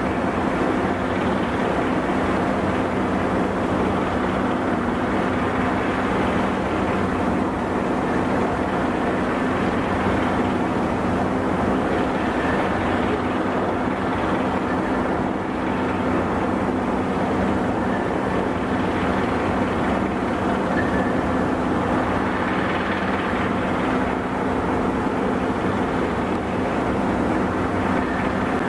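Ship machinery running: the destroyer's engines and its harbour tug's engine make a steady drone with a low hum underneath.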